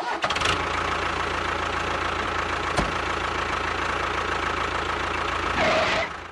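Small engine running steadily, with one sharp click about three seconds in and a little louder near the end; it starts and stops abruptly.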